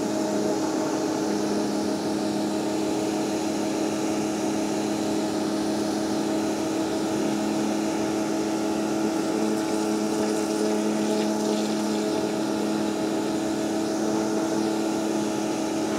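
Pressure washer running steadily: a constant motor hum under the hiss of its water jet spraying onto the floor of a stone drainage trench, washing out mud and leaf litter.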